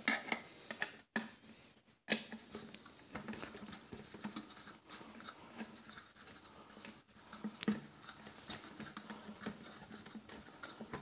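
Faint scratching, rubbing and small scattered clicks of hands handling a plastic jar while a countersunk screw is worked into its base.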